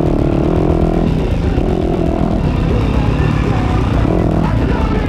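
A Yamaha YZ250F dirt bike's 250cc four-stroke single-cylinder engine running under a fairly steady throttle as the bike is ridden, heard from the rider's position.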